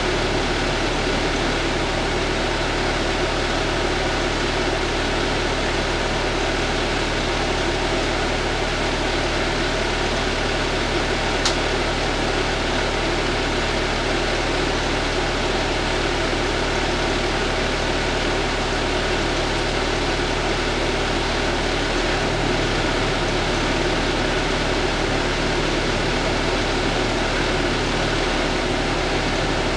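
Steady drone of a parked fire engine's idling diesel engine and cab ventilation, heard from inside the cab, with one brief tick about eleven seconds in.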